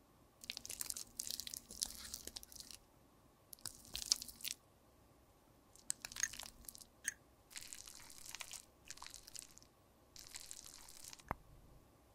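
Close-up crunching and scraping in about seven short bursts, with a sharp knock near the end.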